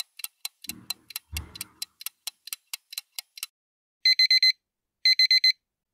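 Countdown timer sound effect: a fast clock ticking, about four or five ticks a second. From about four seconds in, an alarm-clock beep sounds in bursts of four short, high beeps, twice, as the time runs out.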